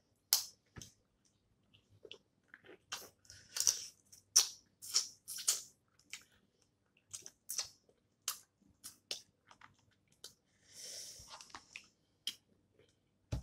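Snow crab legs being cracked and snapped open by hand and eaten: an irregular run of sharp cracks and clicks of shell, with chewing, and a brief hissing suck about eleven seconds in.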